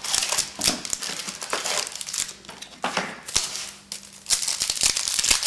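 Rustling and crinkling of a trading-card pack and its cards being handled: the pack opened and the cards slid out and flipped through in a run of scraping swishes, with a brief lull about four seconds in.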